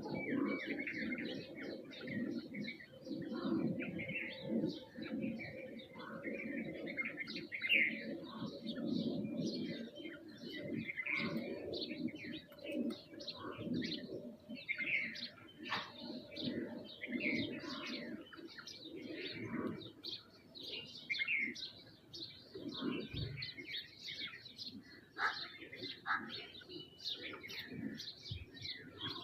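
A busy flock of small birds, sparrows and mynas, chirping and calling over one another without a break, with a steady low sound underneath.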